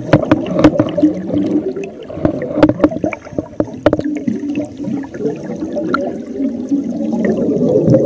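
Scuba divers' exhaled air bubbling out of their regulators, recorded underwater: a muffled, irregular bubbling and gurgling with scattered sharp clicks, growing louder near the end as a thick burst of bubbles sweeps past.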